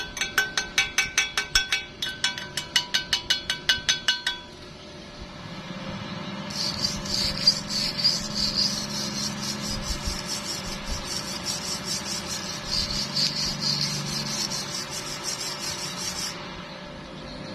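Rapid hammer blows on metal, about six a second, each leaving a ringing tone, stopping about four seconds in. After a short lull comes a steady crackling hiss with a low hum, like a welding arc burning, which lasts about ten seconds and cuts off near the end.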